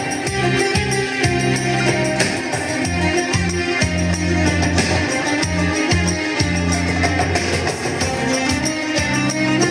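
Music with a steady beat: a bass line moving in held notes under regular, sharp percussion strikes.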